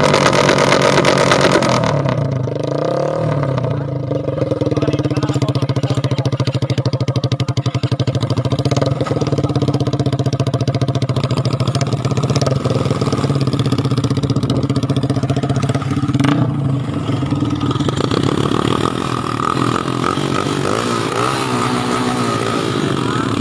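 Skygo 175 motorcycle engine through a loud exhaust pipe, revved hard for the first two seconds, then dropping back to a steady idle. Near the end the engine speed wavers again with light throttle.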